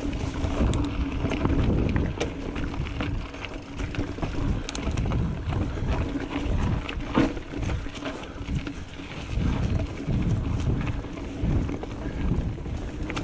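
A mountain bike riding a dirt singletrack: wind rumbling on the microphone, with frequent clicks and knocks of the bike rattling over the rough ground.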